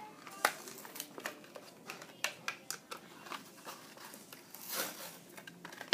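A Hot Wheels car's blister pack being opened by hand: the plastic blister and cardboard card crackle and click in irregular sharp snaps, with a longer crinkling tear near the end.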